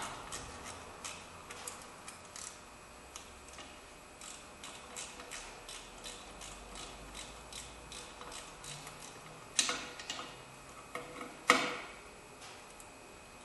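A 1/4-inch drive ratchet clicking in a run of light strokes as it tightens the mounting bolts of a new rear drum-brake wheel cylinder, with two louder knocks of the tool against metal late on.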